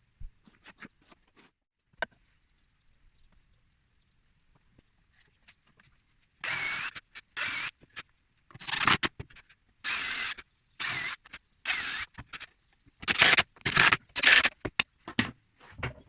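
Woodworking tool noise: a few light clicks, then from about six seconds in a run of about a dozen short scraping bursts, closer together near the end.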